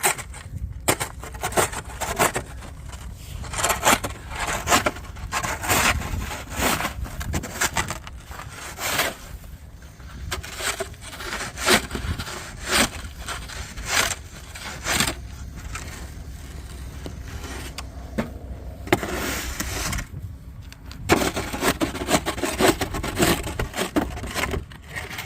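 Repeated irregular scrapes and knocks of a hand tool chipping and scraping at ice frozen hard onto pavement, breaking it loose.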